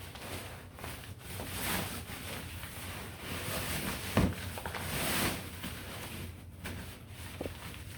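A folded play yard being pushed into its fabric carry bag: rustling and scraping of the bag, with one sharp knock about four seconds in.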